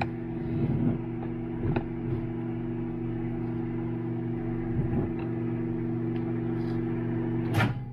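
Microwave oven running with a steady hum while it heats lure plastic, with a few faint knocks. Near the end the hum cuts off suddenly with a sharp click.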